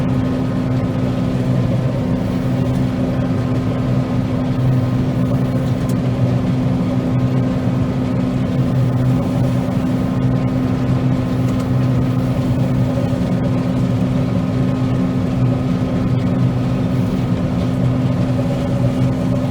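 Combine harvester running steadily while cutting soybeans: a constant engine and machine drone with a low, even hum.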